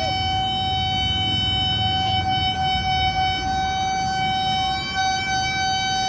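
A steady, unchanging high-pitched tone with overtones, held without a break over a low rumble.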